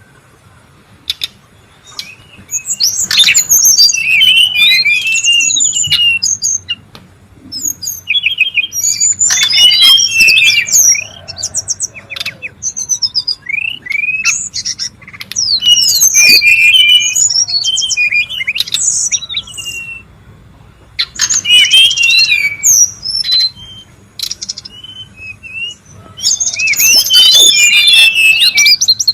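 Brown-chested jungle flycatcher calling in agitated bursts of rapid, high chirps and quick sweeping notes, about five bursts of a few seconds each with short pauses between.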